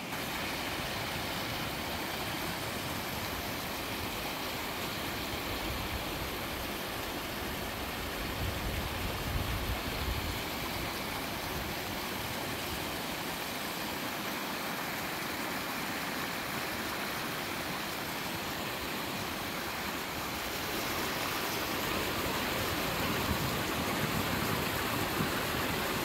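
Glacial meltwater stream running over rocks: a steady rush of water that grows a little louder about nine seconds in and again in the last few seconds.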